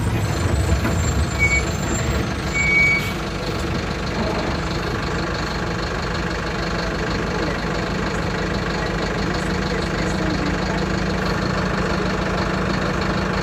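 Mercedes-Benz OF-1721 BlueTec 5 bus's four-cylinder diesel engine running steadily. Two short high beeps sound in the first three seconds.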